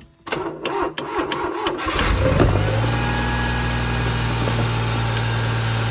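Smart City Coupe's three-cylinder engine being started by tapping the starter solenoid: a quick run of clicks and cranking, then the engine catches about two seconds in and settles to a steady idle. It will only start with the solenoid tapped, the sign of a failing starter motor.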